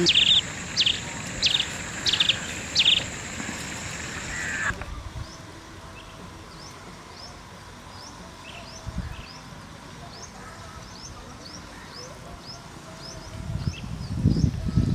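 Birds calling: five loud, short calls about two-thirds of a second apart over a steady high-pitched drone. After an abrupt change a few seconds in, a run of small, quick chirps repeats about every half second. A low rumbling noise rises near the end.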